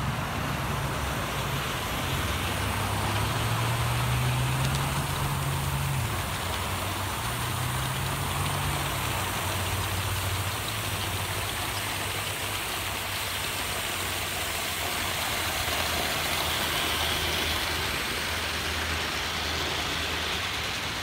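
Aster gauge 1 live-steam Battle of Britain Pacific running with a goods train: a steady hiss and rattle of steam and wheels on the rails, with a low hum underneath that shifts in pitch during the first nine seconds.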